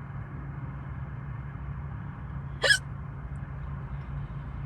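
A person hiccuping once, a short sharp hic about two and a half seconds in, over a steady low rumble.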